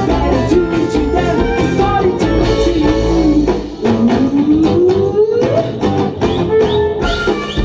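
Live acoustic dance band playing with accordion, violin, double bass, guitar and drums, with some singing. About four seconds in, one long note slides steadily upward in pitch.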